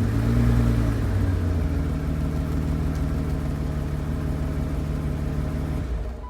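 BMW E32 750's M70 V12 engine settling back after a throttle blip into a steady rough idle, which the owner suspects comes from running rich, with wet, sooty spark plugs. The sound cuts off suddenly at the very end.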